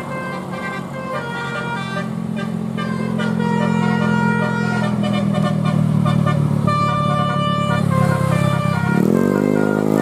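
A bus's multi-tone 'telolet' air horn plays a melody of short stepping notes over the steady drone of engines. The engines grow louder as the vehicles approach, and a rising horn note swells near the end.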